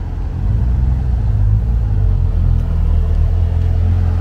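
Porsche Cayman's flat-six engine running at low speed as the car drives slowly past close by. It is a steady low engine note that grows louder about half a second in.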